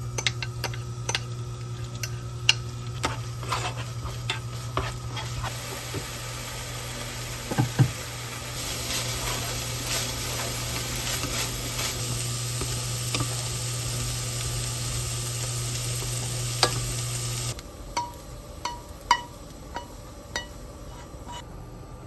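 Food sizzling in a pan while being stirred, with knocks and clicks of the utensil against the pan over a steady low hum. The sizzle grows louder partway through, then the sizzle and hum stop abruptly, leaving a few light clinks of dishes.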